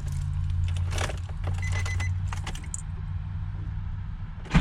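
Keys jangling and clicking over a steady low hum. Near the end the Nissan 350Z's V6 suddenly cranks and fires on its newly replaced starter.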